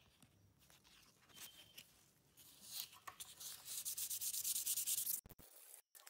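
Fine-grit P2500 sandpaper rubbed on a steel pocket-knife blade. It starts faint with a few light scrapes, then about two and a half seconds in becomes a loud run of quick back-and-forth scratchy strokes, which cut off suddenly near the end.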